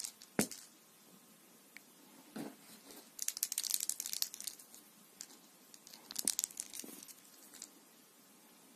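Soft, scratchy rustling in two bursts, about three and six seconds in, with a couple of light knocks: a thread-wrapped toy ball and a hand rubbing against a cat's fur and the fabric throw beneath her.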